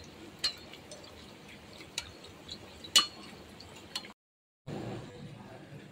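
Khasta kachori deep-frying in hot oil: a faint steady sizzle with a few sharp clicks, the loudest about three seconds in. The sound drops out completely for about half a second just after four seconds.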